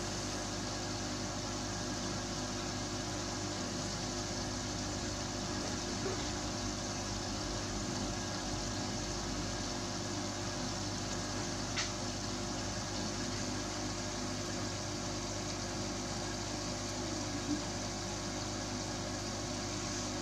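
Steady hum and hiss of running aquarium equipment, with two faint ticks, one about halfway through and one near the end.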